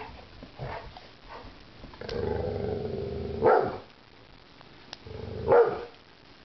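Puppies play-fighting: two stretches of low growling, each ending in a short, louder bark.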